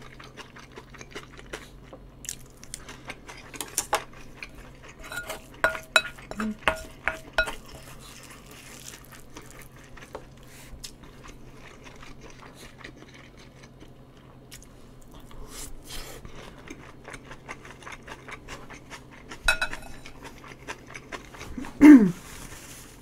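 Metal cutlery clinking and scraping against a bowl, with a few ringing clinks about five to seven seconds in, and chewing in between.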